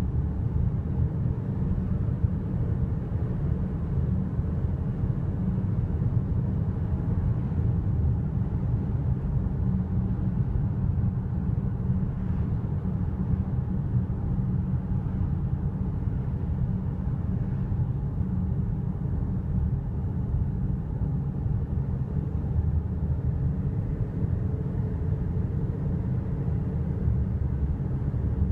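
Steady low rumble of a car driving at highway speed: tyre, road and engine noise heard from inside the cabin.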